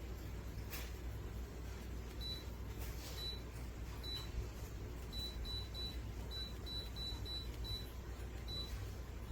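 Short, high electronic beeps from a humidifier's control panel, about a dozen at uneven intervals starting about two seconds in, over a steady low hum.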